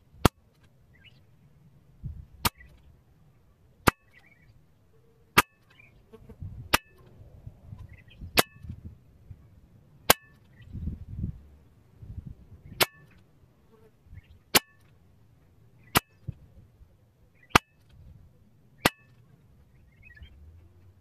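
Weihrauch HW100T .22 pre-charged pneumatic air rifle firing pellets in a steady string: about a dozen sharp cracks, one every one and a half to two and a half seconds, with softer low rustling between some shots.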